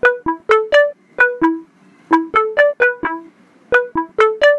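Seeing AI app's processing sound on an iPhone: a little looping tune of short pitched notes, played in quick runs of two to five with brief gaps between. It is the sign that the app is still busy analysing the photo.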